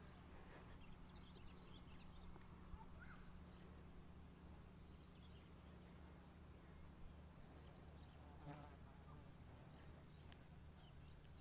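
Near silence: faint outdoor ambience with a thin, steady, high insect trill over a low hum, and a couple of faint ticks.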